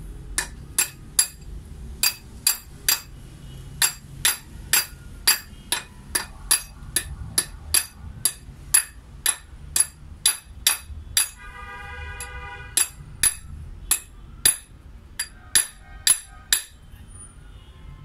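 Wooden mallet striking an annealed coin on a ring mandrel, a steady run of sharp knocks about two to three a second that bend the coin down the taper into a ring. The blows pause briefly about two-thirds through, where a short pitched tone sounds, and stop shortly before the end.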